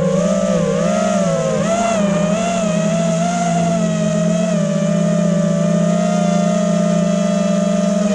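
FPV racing quadcopter's brushless motors whining in flight. The pitch wavers up and down with the throttle for the first few seconds, then holds steadier.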